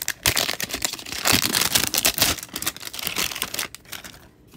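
Plastic wrapping on a blind-box toy package crinkling and crackling as it is handled and unwrapped, a dense run of quick crackles that dies down near the end.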